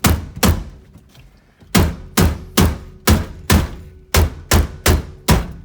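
Hammer blows on a Chevrolet Silverado steering wheel, knocking it loose from the splined steering shaft with the nut left loosely on. Two sharp strikes, a pause of about a second, then a steady run of nine more at about two a second.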